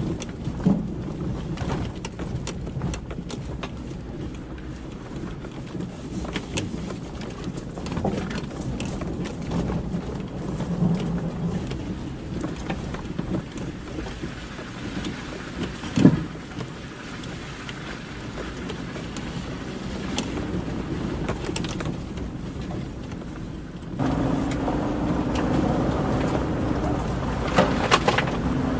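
A vehicle driving over a rough overgrown forest track: a steady low rumble with brush and branches scraping against it and a scatter of clicks and knocks, the loudest knock about 16 seconds in. About 24 seconds in, the engine note gets louder and steadier.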